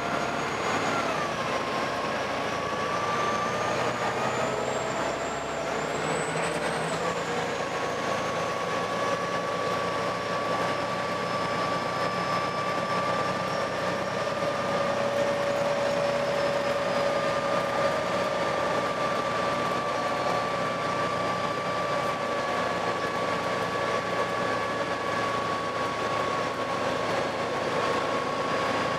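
Volvo B7TL double-decker bus running, with several steady whining tones over the engine noise; a high whine climbs over the first several seconds and then sinks and fades. This whining is the weird engine noise the bus is filmed for.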